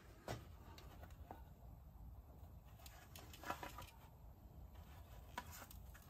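Near silence with a few faint taps and clicks: handling noise as gloved hands move a 3D-printed plastic bust about a steel casting flask. The clearest tap comes about three and a half seconds in, over a low hum.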